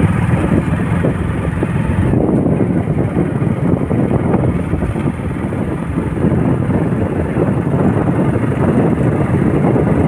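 Wind buffeting the microphone on a moving motorcycle, over steady engine and road noise.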